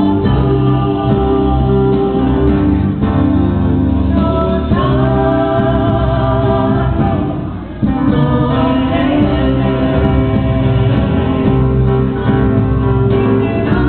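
A group of voices singing a Polynesian dance song over steady low accompaniment, with a short drop in level about eight seconds in.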